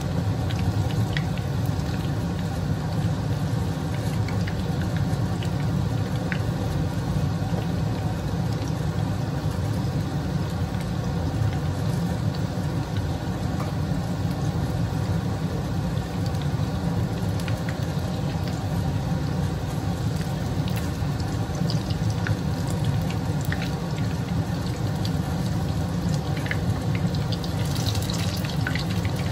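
Pieces of chicken karaage deep-frying in hot oil: a steady bubbling sizzle with scattered small pops and little splatter, over a low steady rumble.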